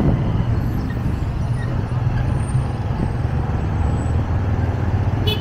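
Motorcycle engine running at a steady low pace in slow town traffic, with road and traffic noise. Two short high-pitched beeps sound near the end.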